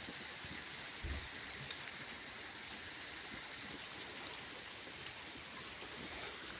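Steady rain falling, an even hiss of drops, with a soft low bump about a second in.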